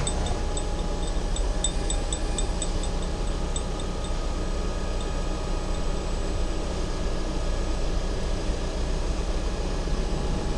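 Heavy-haul transport machinery running steadily under the load of a 10 MW regulating transformer: a low, even hum with a few steady tones. Faint rapid ticking sounds over roughly the first five seconds.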